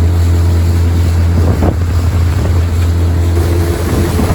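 A small boat's 9.9-horsepower outboard motor running steadily under way, a loud low drone, with wind on the microphone.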